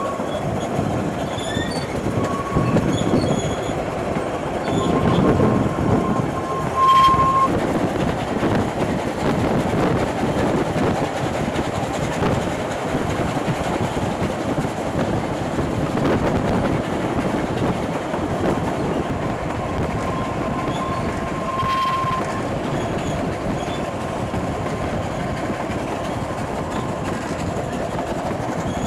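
Narrow-gauge steam train running, heard from an open carriage window: the steady rumble and clatter of the coaches' wheels on the track. A thin high wheel-flange squeal on the curves comes and goes three times and is loudest about seven seconds in and again about twenty-two seconds in.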